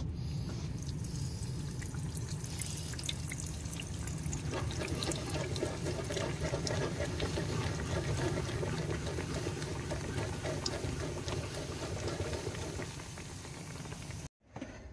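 Hot oil sizzling steadily around a stuffed pizzella (a folded pocket of pizza dough) frying in a small pan, with many small crackling pops. The sound cuts off suddenly near the end.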